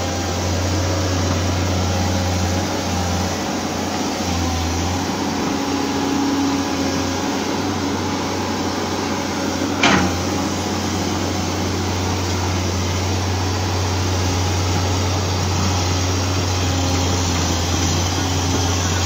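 Kobelco hydraulic excavator's diesel engine running steadily with a low hum as the machine crawls through swamp mud, with one sharp clank about halfway through.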